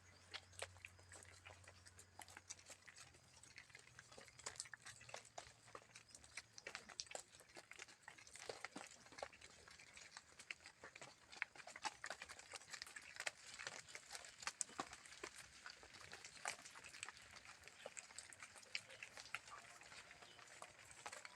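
Cattle hooves knocking and clicking on the road in an irregular patter as a herd walks past, with a faint low hum in the first few seconds.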